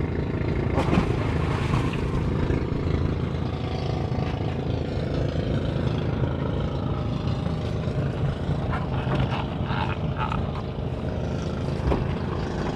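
Engine of a bangka outrigger boat running steadily, a continuous low drone.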